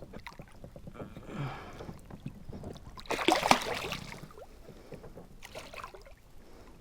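Water sloshing and splashing as a striped bass is lowered back into the water for release, loudest about three to four seconds in.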